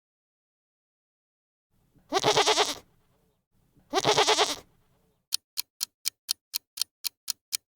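A goat bleats twice, two wavering calls about two seconds apart. Then a clock ticking starts, about four ticks a second.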